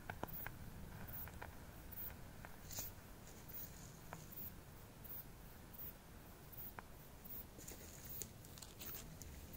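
Quiet outdoor ambience with a scattering of faint ticks and clicks.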